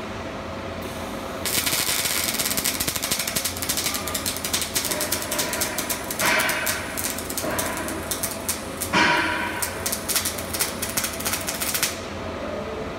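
Robotic MIG welding arc crackling continuously as a Fanuc robot lays a weld, starting about a second and a half in and cutting off abruptly near the end. A steady machine hum lies underneath.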